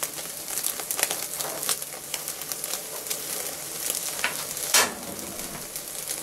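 Rib-eye steak sizzling on a grill grate over a glowing infrared burner, searing its second side. A steady hiss is broken by frequent crackles of spitting fat, with one louder pop a little before the end.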